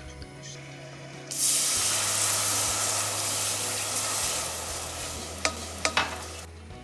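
Food sizzling in hot fat in a pot, starting suddenly as it goes in and slowly dying down. Near the end a utensil knocks against the pot three times.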